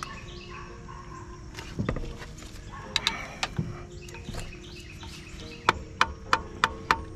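Light hammer taps on a screwdriver used as a chisel against the plastic fuel filter housing cap of a Ford 6.0 Powerstroke diesel, breaking the stuck cap off piece by piece. A few scattered knocks, then from near the end a steady run of sharp taps about three a second.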